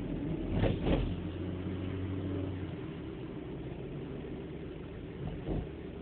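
Car engine running with road noise, heard from inside the cabin, its steady hum easing a little before halfway. Two short knocks come about a second in and another near the end.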